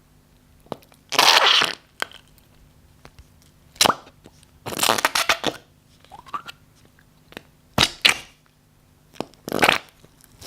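Slime being squeezed and pressed by hand, giving short wet squelching and crackling bursts, some fart-like, about six times with quiet gaps between.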